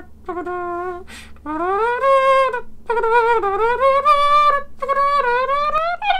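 A man vocalizing a wordless tune with his voice, which sounds like a horn or woodwind. A held note and a short break, then longer phrases that slide up and down in pitch.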